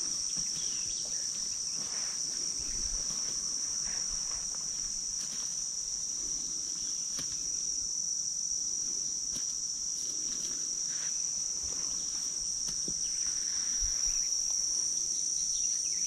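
Steady chorus of insects: one continuous high-pitched buzzing trill that holds without a break.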